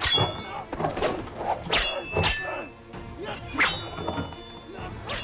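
Weapons clashing in a staged film fight: about six sharp metallic clangs and thwacks spread out over a few seconds, several ringing on briefly after the hit.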